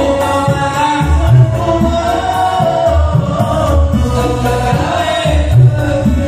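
A male voice sings a Javanese Islamic devotional song into a microphone over a PA system, in long held, wavering notes. It is accompanied by a steady low beat that pulses about once a second.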